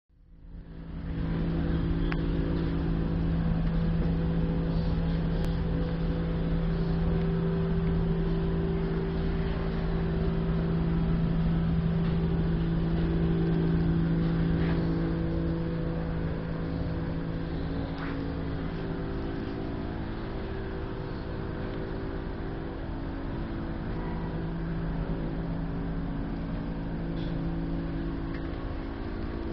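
A machine running steadily: a low hum holding one pitch over a low rumble, easing off a little about halfway through.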